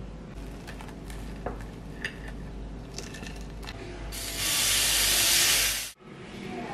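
Batter sizzling as it is poured onto a hot stovetop waffle iron: a loud hiss that starts about four seconds in and cuts off suddenly about two seconds later. Before it, only a low background with a few light clicks.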